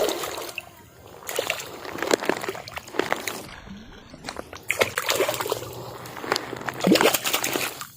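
Water splashing and sloshing in irregular bursts, with scattered sharp splashes.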